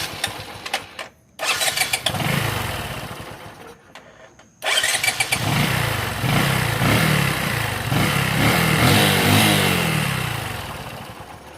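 Engine started twice. The first burst, about a second and a half in, dies away after a couple of seconds. The second catches about four and a half seconds in and runs on, its pitch rising and falling repeatedly, then fades near the end.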